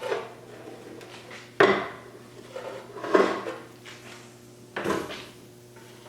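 Metal parts being handled on a workbench: four clanks about a second and a half apart, each ringing briefly.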